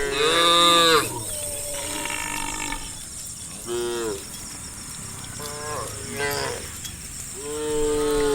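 Cattle mooing one after another, about six calls of differing pitch, the loudest in the first second and a long one near the end.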